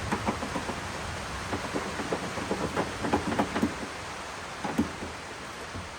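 Irregular small metal clicks and knocks from fitting a replacement lock cylinder and its linkage into a Fox-body Mustang's rear hatch, over a steady hiss.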